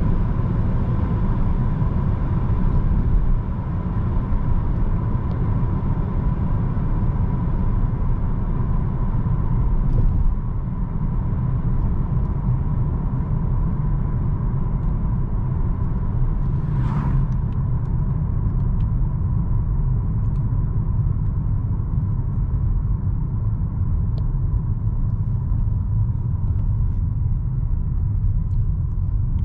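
Dodge Charger GT's 3.6-litre V6 and tyres, a steady low driving rumble at cruise, with a thin steady high tone over it. A short hiss rises and fades about seventeen seconds in.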